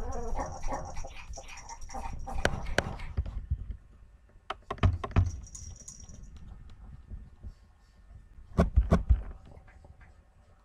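Puppies scuffling about in a pen on a wooden floor: a run of light clicks and scratches, then sharp heavy knocks about five seconds in and again near nine seconds.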